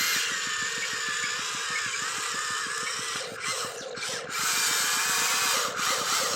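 A small electric motor whining with a wavering pitch, cutting out briefly a few times. A steady low beat runs underneath.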